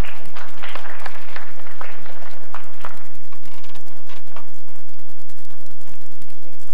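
Scattered audience applause, a patter of hand claps that is strongest in the first few seconds and then thins out and dies away.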